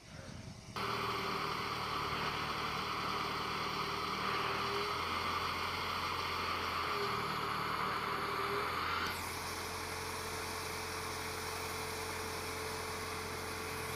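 Engine of a mobile aircraft arresting system running steadily at an even pitch. Its tone shifts abruptly about nine seconds in, then holds steady again.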